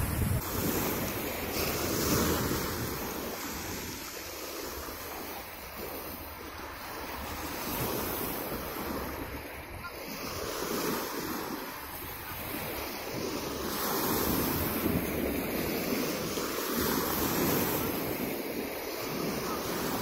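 Small sea waves breaking and washing up over a pebble beach, the surf swelling and fading every few seconds.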